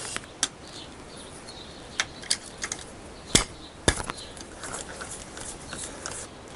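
Socket wrench working the 10 mm sump bolts on a Honda CBR1000F engine, cracking them loose: scattered metallic clicks and taps, with two louder sharp knocks about half a second apart a little past the middle.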